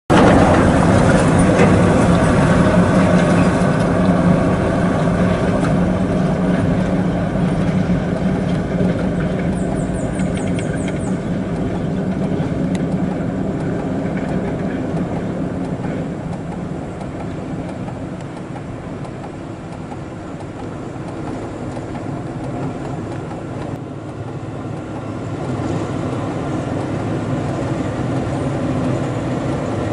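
Heavy diesel dump trucks running on a muddy road: a steady, deep engine drone that is loud at first and slowly fades as one truck moves away. It grows louder again near the end as a Mercedes-Benz dump truck approaches.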